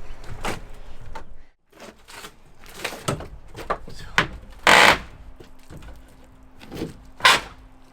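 Irregular knocks and bangs on wood as a loose, shaky wooden structure is struck and shaken during demolition; the two loudest bangs come near the middle and near the end.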